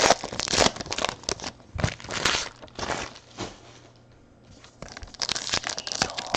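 Crinkling and rustling of 2018-19 Panini Hoops basketball card pack wrappers and cards being handled as packs are opened, in irregular bursts with a quieter pause about four seconds in.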